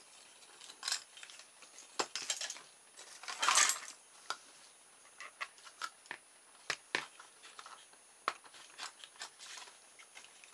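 Small clicks, taps and scrapes of handled plastic and wood as a CD wheel with a plastic bottle-top hub is pushed onto a wooden barbecue-skewer axle running through plastic straw bearings. The loudest part is a longer scraping rustle about three and a half seconds in.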